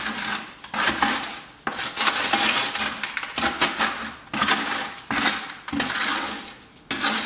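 Wet concrete being scraped out of a tipped bucket into a plastic paver mold with a wooden paint stir stick: repeated gritty scraping strokes, about one a second, with the mix sliding and dropping into the mold.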